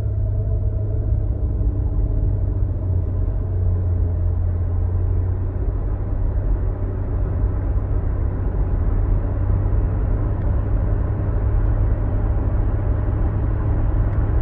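Cabin noise of a 2015 Nissan Murano's 3.5-litre V6 and CVT accelerating from a stop: a steady low rumble of engine and road noise. The CVT holds engine speed near 2,000 rpm while road speed climbs, so the pitch stays level and the sound grows only slightly louder.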